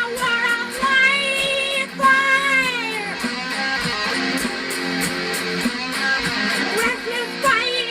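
Guitar-led music: a lead line of bending, gliding notes over strummed guitar and a steady, regular beat.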